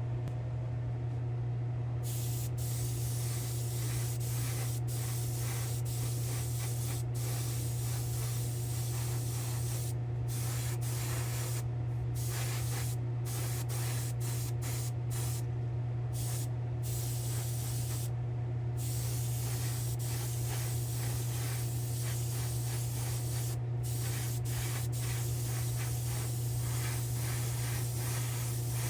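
Paint spraying in repeated bursts: a hiss that starts about two seconds in, then cuts out briefly and resumes many times as the trigger is released and pulled again. Under it runs a steady low hum.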